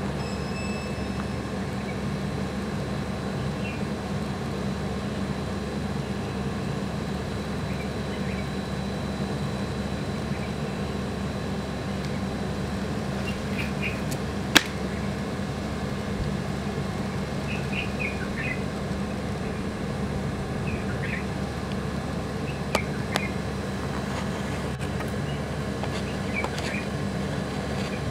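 Steady low hum of background noise with scattered short bird chirps. A sharp click sounds about halfway through, and two more come close together later on.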